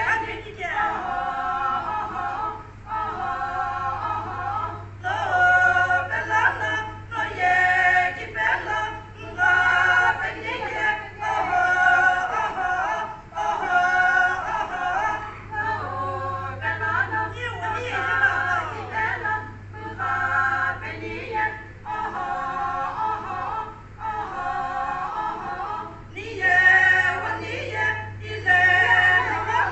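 A group of women singing together, unaccompanied, in phrases of a few seconds with short breaks between them. A steady low hum runs underneath.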